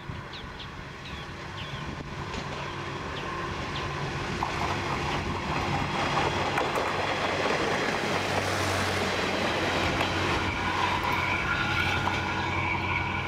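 Kanto Railway KiHa 532 diesel railcar passing close by on the track: the engine and wheels on the rails grow steadily louder as it approaches, peaking about eight seconds in with a low steady engine drone, and stay loud as it runs past.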